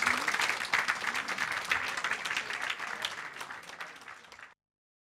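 Audience applauding, the clapping slowly dying away and then cutting off suddenly about four and a half seconds in.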